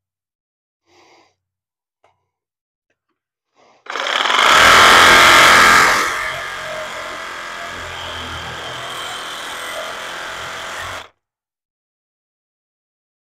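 A handheld power tool starts about four seconds in and runs hard for about two seconds. It then runs at a lower, steady level and cuts off abruptly about eleven seconds in. A few faint handling clicks come before it.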